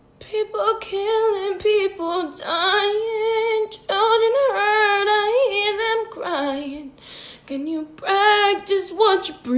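A woman singing solo with no accompaniment, holding long notes with a wavering vibrato and pausing briefly between phrases.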